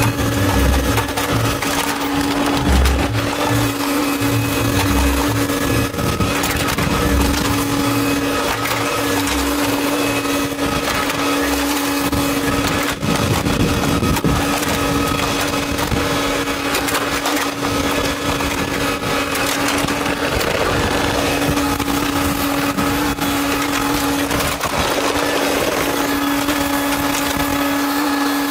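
Diesel engine and hydraulics of a Hitachi Zaxis tracked excavator running steadily close by with a constant droning tone while it digs in bog mud. Low surges and thumps come and go in the first dozen seconds, then the engine settles to an even run.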